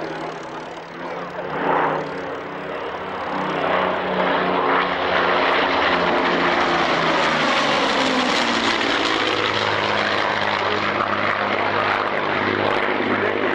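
De Havilland Mosquito's twin Rolls-Royce Merlin V12 engines running in a display pass. The engine note grows louder after about four seconds and drops in pitch around eight seconds in as the aircraft goes by.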